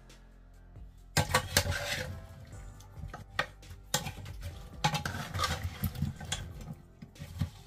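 A spoon stirring chunks of vegetable through cooked dal in an aluminium pressure cooker, with irregular clinks and scrapes against the pot that begin about a second in.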